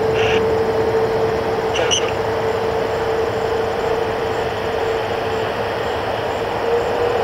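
Rolls-Royce Trent 700 turbofan engines of an Airbus A330 running at taxi power: a steady whine over a broad, even rumble.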